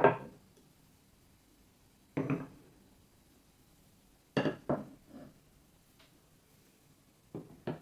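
Wooden marble-run blocks and grooved track pieces being set down and fitted together by hand, giving short hard wooden clacks: one at the start, one about two seconds in, a quick run of three around four and a half seconds, and a pair near the end.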